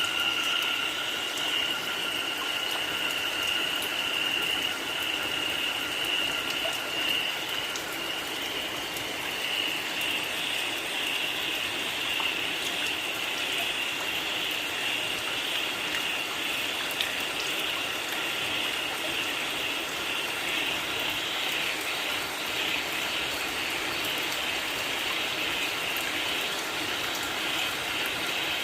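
Steady rain falling, with a chorus of frogs calling as a continuous high-pitched drone over it.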